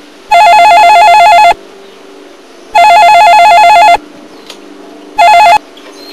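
A corded push-button desk phone ringing loudly with a warbling electronic trill, two full rings and then a short third ring that stops as the call is answered.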